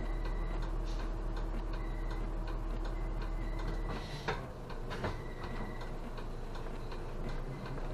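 Turn-signal indicator ticking steadily in a stopped city bus's cab, over the low hum of the idling diesel engine.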